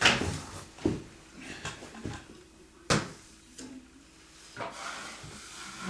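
Drywall knife scraping Durabond setting compound across a ceiling patch in a series of short strokes, the sharpest about three seconds in.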